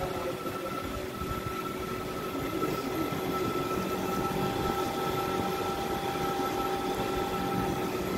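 Single-phase electric pump of an electroplating cartridge filter running steadily: a constant motor hum with a high whine over a rough low noise.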